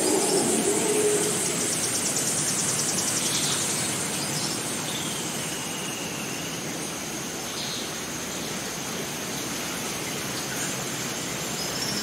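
Rainforest ambience: an even rush of running stream water under a steady high-pitched insect drone, with a fast insect trill in the first few seconds. A few short bird chirps and one falling whistle come about halfway through.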